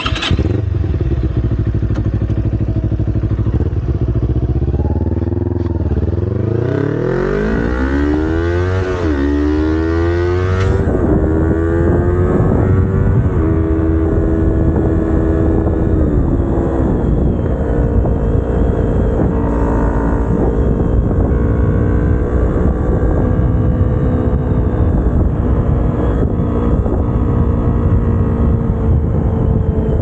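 Kawasaki Ninja 250R's parallel-twin engine ticking over for about six seconds, then revving up as the bike pulls away. It shifts up four times, the pitch dropping back at each shift, then holds a steady engine note at cruising speed.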